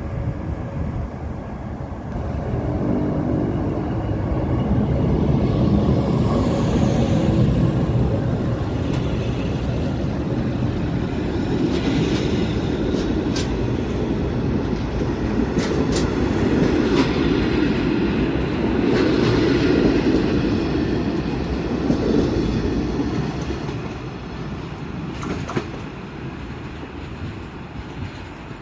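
SJ Rc6 electric locomotive hauling a regional train as it pulls out of the station: a steady rumble of wheels on rail with a few sharp clicks. It grows louder about five seconds in and eases off over the last few seconds.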